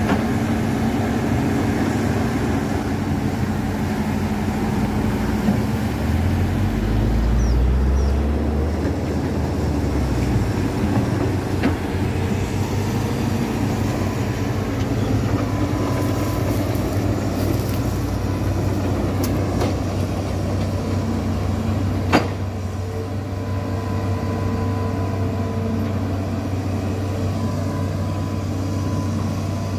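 Diesel engine of a Hitachi Zaxis 210F amphibious excavator running steadily while the machine works and travels on its pontoon tracks. A deeper low hum comes in for a few seconds about a quarter of the way through, and a single sharp click sounds a little past the middle.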